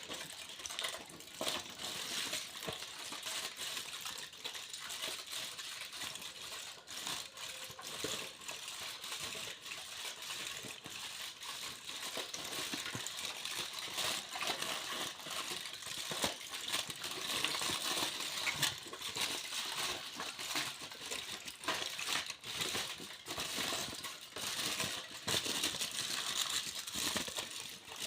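Foil being crinkled and crumpled: a continuous dense crackling made of many small sharp clicks.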